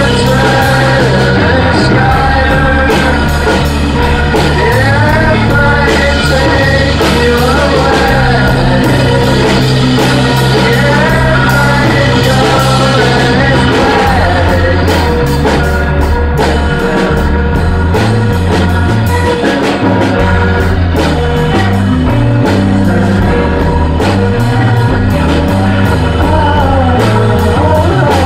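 Rock band improvising live in a practice room: singing re-amped through a Leslie rotating-speaker cabinet, over bass notes held for a few seconds each and drums, with the drums somewhat blown out by the in-room vocals.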